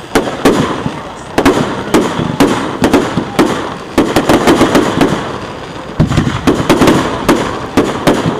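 Aerial fireworks bursting in a display: rapid, overlapping bangs and crackling that come in dense clusters, with a short lull a little before the middle.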